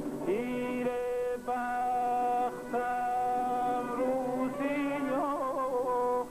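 A man singing a slow line of long held notes, with a quick warbling run about five seconds in.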